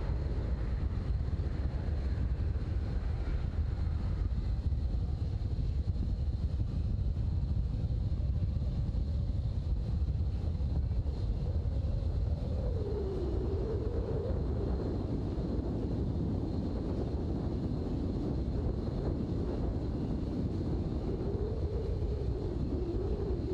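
Air China Boeing 747-400's jet engines giving a steady low rumble as it rolls along the runway after landing, with wind buffeting the microphone. A faint wavering hum joins about halfway through.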